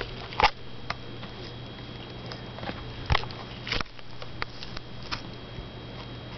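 Handheld camera being moved about: scattered knocks and rubs from handling over a steady low hum and a faint high whine.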